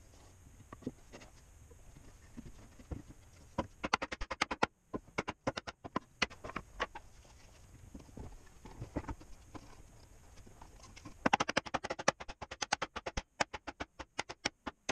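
Sped-up wooden knocking and clicking as plywood snap-fit parts are handled, pushed together and tapped home with a wooden mallet. Scattered knocks, with fast runs of taps about four seconds in and again over the last few seconds.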